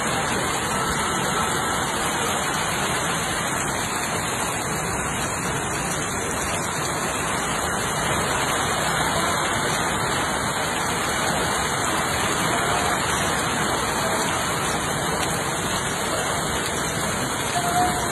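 Heavy rain falling steadily, a dense even hiss of a downpour.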